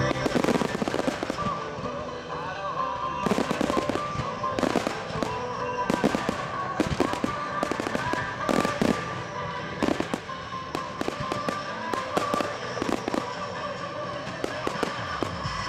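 Display fireworks bursting and crackling in a fast, irregular run of bangs, with the display's music soundtrack playing along.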